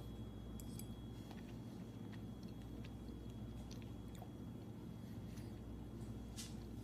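Faint chewing of a mouthful of soft, squishy canned pasta in a runny tomato sauce: quiet, irregular mouth clicks over a steady low room hum.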